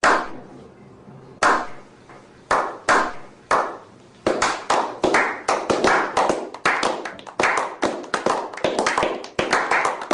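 Sharp hand claps or slaps with a short ring after each. A few spaced claps at first, then from about four seconds in they come quicker and irregular, several a second.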